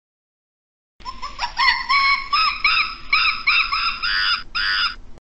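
A primate calling: a short rising note, then a run of repeated arching hoots, about three a second. It starts about a second in and cuts off abruptly near the end.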